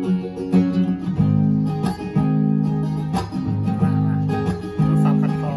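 Acoustic guitar strumming chords in an instrumental passage with no singing, each chord struck and left to ring before the next.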